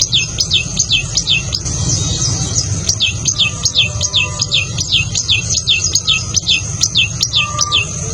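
Tailorbird calling: a fast run of short, high notes, each sliding downward, about three or four a second, with a pause of about a second before the series resumes.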